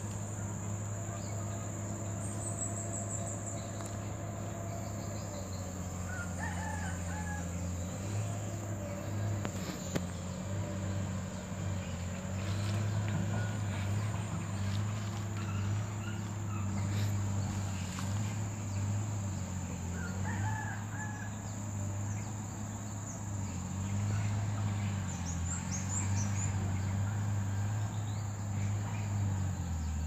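Insects droning steadily, with a few short bird chirps that come three times, over a loud low hum that pulses and steps up and down.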